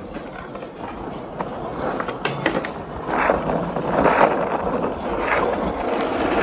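Skateboard wheels rolling over rough concrete as the skater pushes along. The sound grows louder as the board picks up speed, with a few sharp clicks about two seconds in.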